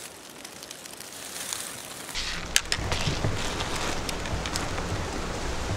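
Dry leaf litter crunching and rustling underfoot, with sharp crackles. From about two seconds in it gets louder, over a low rumble like wind on the microphone.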